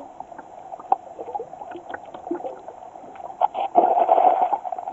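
Muffled underwater sound of churned seawater, heard from a camera held below the surface: a dull rush of water with many scattered small clicks and bubble pops, swelling louder about four seconds in.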